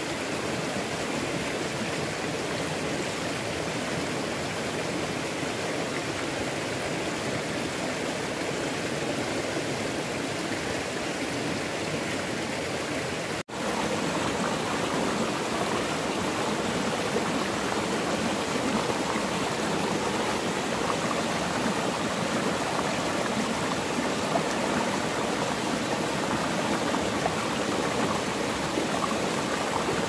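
Shallow rocky stream rushing and babbling over stones, a steady wash of water noise. It cuts out for an instant about halfway through, then goes on a little louder.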